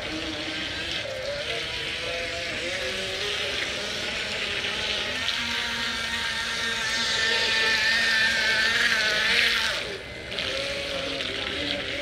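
Remote-control boat's small motor whining steadily as it tows a floating board across a pool, growing louder as it comes closer and dropping off sharply about ten seconds in.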